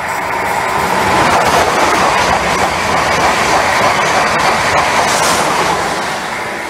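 A white long-distance passenger train running through a station at speed without stopping: a rush of wheels on rails and moving air that builds over the first second, stays loud, then fades near the end as the last coaches pass.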